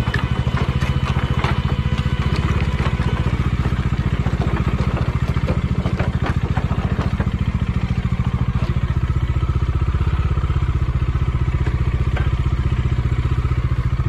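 Motorcycle engine running steadily at low revs close to the microphone, with scattered clicks and clatter over it.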